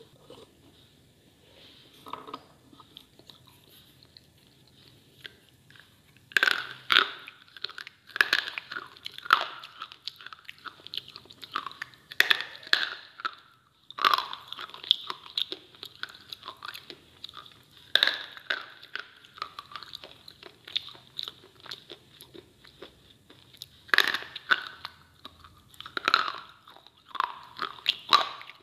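Close-up biting and chewing of hard, chalky slate bars: after a quiet start, sharp crunches come in clusters, each bite followed by several grinding chews.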